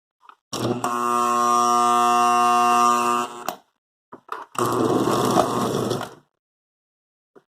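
Lionel Santa Fe model train engine powered up in two bursts. First comes about three seconds of steady electric buzz, then a couple of clicks, then about a second and a half of rougher motor running.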